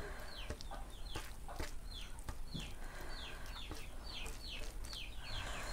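Birds cheeping: a steady run of short, high, falling cheeps, two or three a second, with a few sharp clicks and taps mixed in.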